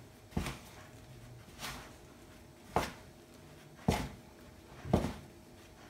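Bread dough being mixed by hand in a plastic bowl, with five dull knocks about a second apart as the bowl is worked.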